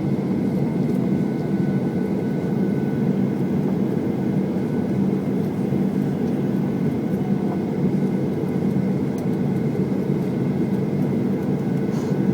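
Jet airliner engines running steadily, heard as a loud, even cabin rumble with a faint steady whine above it.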